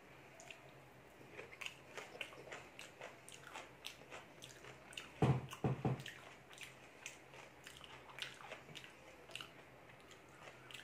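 Close chewing and wet mouth clicks of a person eating rice and dal by hand. About five seconds in there are two or three louder low thuds.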